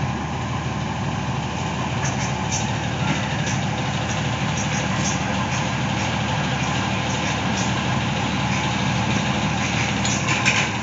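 Houseboat's engine running steadily under way, an even low drone with no change in speed.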